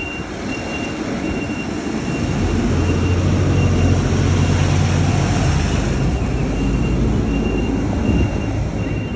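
Mack refuse truck's diesel engine running with a steady low rumble, growing louder about two seconds in.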